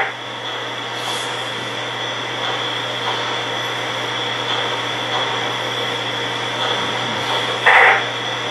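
Standing sounds from a Lionel Santa Fe 3751 model locomotive's sound system while it waits on the track: a steady hiss over a low hum, with a short louder burst of hiss near the end.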